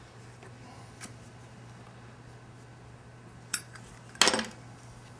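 A small metal lighter clicking and being struck: a faint click about a second in, a sharp click about three and a half seconds in, then a louder quick run of clinking clicks just after four seconds as it is lit.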